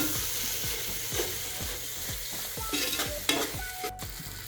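Spiced masala sizzling in hot oil in a cooking pot, stirred with a spoon that scrapes the pot in repeated short strokes, with a steady frying hiss.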